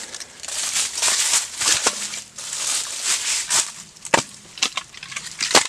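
Dry wood being broken and handled, a run of crunching and crackling with two sharp snaps, about four seconds in and near the end.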